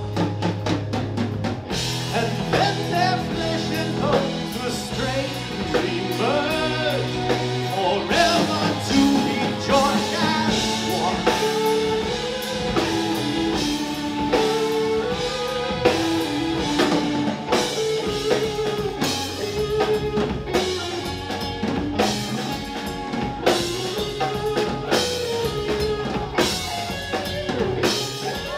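Live rock band playing an instrumental passage: drum kit, electric guitars and keyboards, with a stepping lead melody over steady drums.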